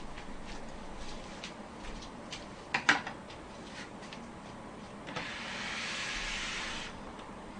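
Handling noises: scattered light clicks, a sharp double click about three seconds in, then a brief rushing hiss lasting under two seconds.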